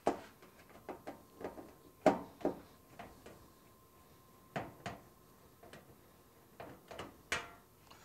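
Irregular clicks and taps of a hand screwdriver and hands working at the front cover of a Navien tankless water heater as its four cover screws are taken out. The knocks come a second or so apart, with quiet between them.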